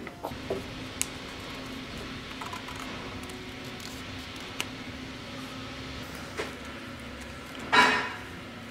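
Paper rustling and crinkling as a sheet is folded and pressed around a dagger's metal hilt, with a few small clicks and one loud crinkle near the end, over a steady low hum.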